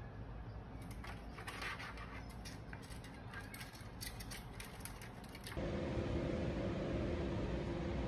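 Light scattered taps and scratches from a small parrot perched on the plastic rim of a switched-off electric fan. About two-thirds of the way through, a louder steady hum with a held low tone comes in abruptly.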